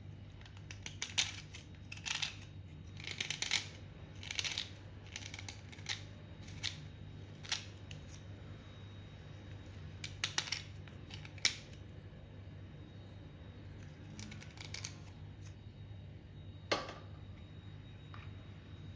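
A thin metal blade scraping a soaked block of white 'broken white' clay, taking off its stained outer layer in a series of short, crisp scrapes that come in quick runs with pauses between. One sharp scrape stands out about two seconds before the end.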